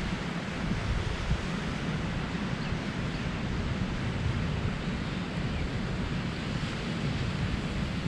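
Surf washing steadily onto a sandy beach, with wind rumbling on the microphone.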